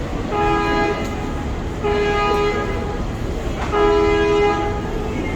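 A ferry's horn sounds three short blasts, each a two-note chord, over the steady low rumble of engine and water. Three short blasts is the ship's signal that its engines are going astern, as a ferry backing out from a wharf gives.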